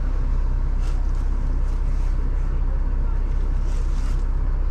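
Jeep engine idling steadily, with a few faint clicks or knocks over it.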